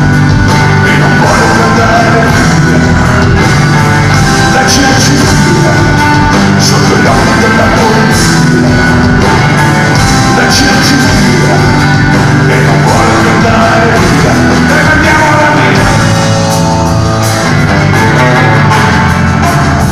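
A rock band playing live on electric guitars, drums and keyboards, with a singer, heard loud from the audience.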